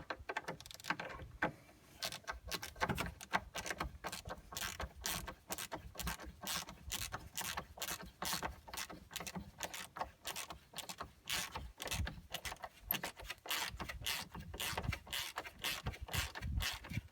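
A Torx 30 screw being driven back in with a hand tool: a long run of quick, even clicks, about three a second, as the tool works the screw.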